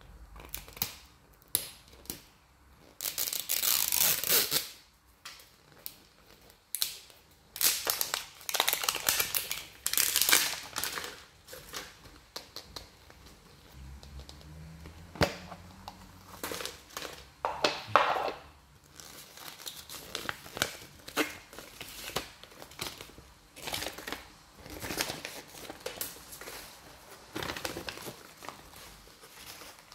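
Paper and plastic packaging crinkling and tearing by hand in irregular bursts as a toy capsule ball is unwrapped: labels peeled off a plastic ball and a paper leaflet unfolded.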